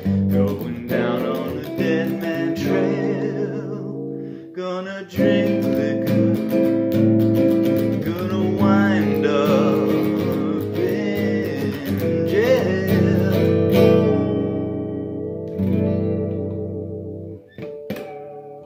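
Electric guitar strumming full, jazzy chords, with wordless singing wavering over them. The chords break off for a moment about four and a half seconds in, then ring on and die away near the end.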